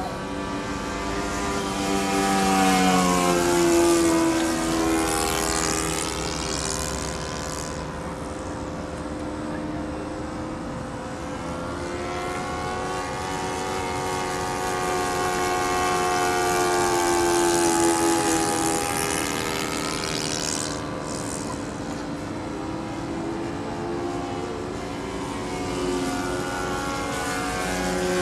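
ASP 91AR glow engine of a Groovy 50 3D RC aerobatic model plane running in flight. Its buzzing note grows louder and slides down in pitch twice as the plane flies past.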